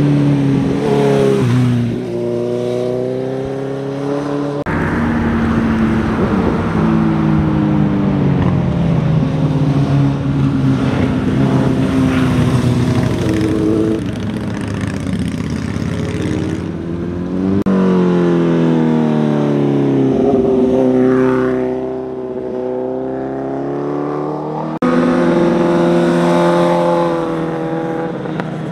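Sport motorcycles passing one after another through a curve, engines revving: the pitch falls as they slow into the bend and rises as they accelerate out. The sound changes abruptly several times.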